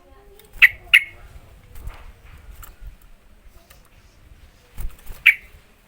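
Sooty-headed bulbul (trucukan) calling: a few short, sharp chirps, two close together near the start and one more near the end, with fainter notes and small clicks between.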